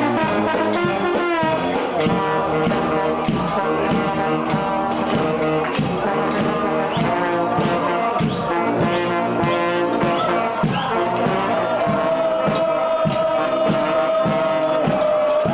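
Festive brass band (banda) playing a lively tune with a steady drum beat, brass and saxophone carrying the melody; a long held note sounds in the last few seconds.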